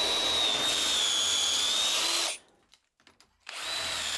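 Cordless drill running with a steady high whine, boring a dowel hole through a doweling jig into softwood. It stops a little over two seconds in, and a second drilling run starts about a second later.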